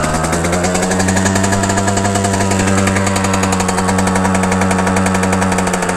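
Vehicle engine running under steady load at a constant speed, its pitch rising slightly at first and then holding even.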